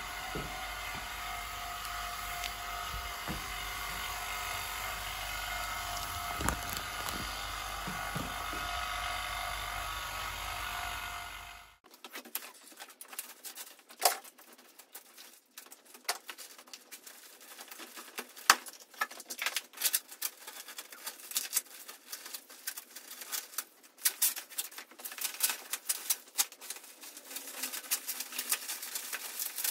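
Vacuum pump running with a steady hum, drawing down the vacuum bag over a carbon fiber surfboard lay-up; it cuts off abruptly about twelve seconds in. Scattered sharp crackling and crinkling clicks follow.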